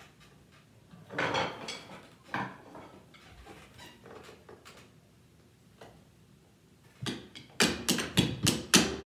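Wooden drumsticks rapping on a digital piano's keys and body: scattered knocks, then a quick run of about seven loud, sharp hits near the end that cuts off suddenly.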